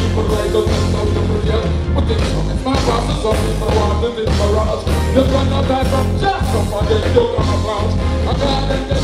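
Live reggae band playing through a concert sound system, with heavy bass and drums and a male vocalist on the microphone over the band.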